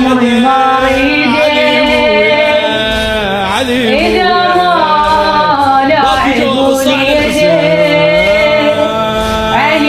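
Arabic lament singing: a single voice singing long, ornamented held notes that bend and waver in pitch.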